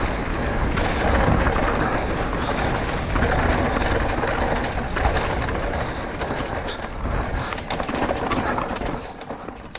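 A Trek Rail electric mountain bike descending fast over a rough dirt trail: a continuous rush of tyres on dirt with frequent clicks and rattles from the bike jolting over bumps.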